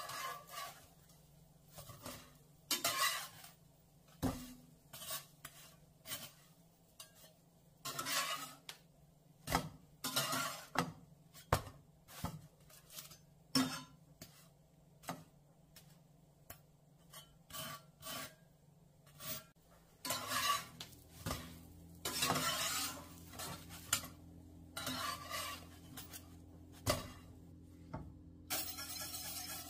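Metal spatula scraping and tapping in a nonstick frying pan as grilled cheese sandwiches fry, with clinks of pans and utensils and some sizzling. A steady low hum comes in about two-thirds of the way through, and near the end liquid is poured into a steel pot.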